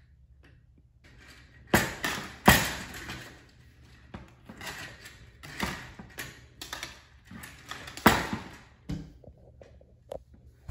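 A toddler's hands slapping and banging on a glass-paned door, making it rattle: two loud bangs about two seconds in, a run of smaller knocks through the middle, and another loud bang about eight seconds in.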